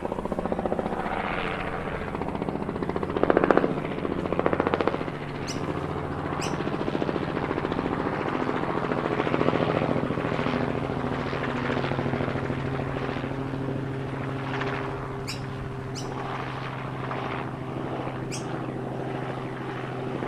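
Small DC motor and spinning rotor of a homemade marker-pen toy helicopter in flight: a steady, rapidly pulsing buzz that swells louder a few seconds in, with a few sharp clicks.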